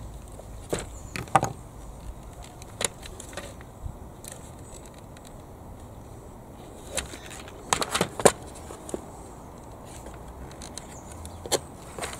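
Scattered light clicks and knocks of hard plastic being handled: a Bruder toy excavator's plastic track frame, with small geared motors and gear wheels fitted, is turned over and repositioned. The loudest is a quick group of three sharp clicks about eight seconds in.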